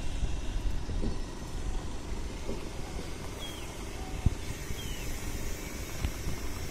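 Uneven low outdoor rumble on the bank of the fast, flooded river, with two short falling chirps about halfway through.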